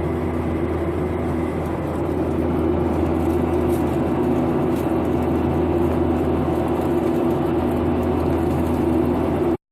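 Steady drone inside an airliner cabin: engine and airflow noise, with a low hum under it. It cuts off abruptly near the end.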